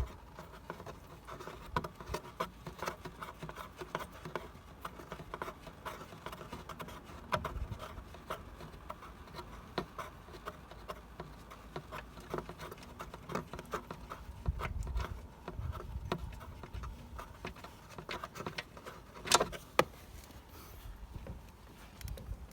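Irregular light clicks and taps of a socket wrench working the oil reservoir drain plug on an ATV, with one sharper knock about nineteen seconds in.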